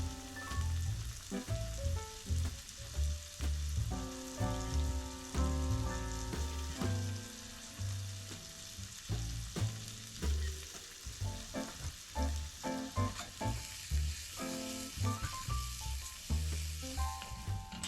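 Food sizzling in a frying pan, a steady hiss, under background music with note melodies and a low pulsing bass.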